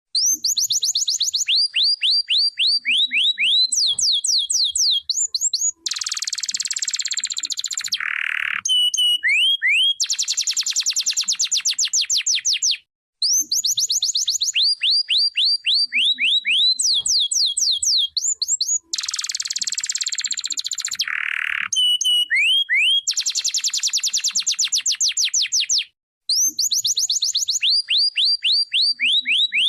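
Domestic canary singing: rapid trills of repeated high sweeps that change into buzzy rolls and lower chirped phrases. The same song sequence comes round twice, each time ending in a brief pause.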